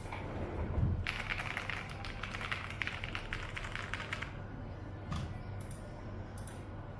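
Mechanical keyboard with PBT dye-sub keycaps being typed on: a fast run of keystrokes from about a second in until about four seconds, then a few scattered keypresses. A dull low knock comes just before the typing starts.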